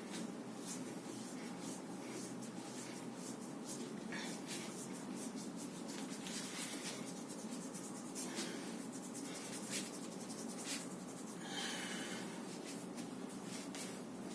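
Hands rubbing and working over the body during a massage, with scattered light clicks and a short hiss about eleven and a half seconds in.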